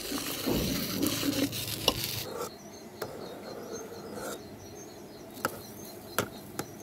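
A metal ladle stirring soup in an aluminium pot. It gives a few sharp clicks against the pot's side. The first two seconds are busier and louder, then it goes quieter.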